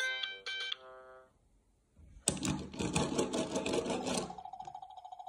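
A plastic toy train's spinning mechanism rattles in a fast run of clicks, about ten a second, starting about two seconds in. It gives way near the end to a short buzzing electronic tone. A short electronic toy tune ends just before that, under a second in.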